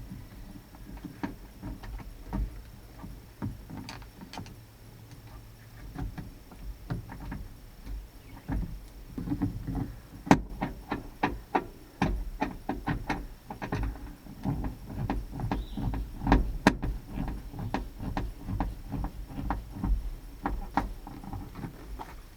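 Hand work on a pickup truck's door: a string of light clicks and knocks, scattered at first and coming quickly and irregularly through the second half.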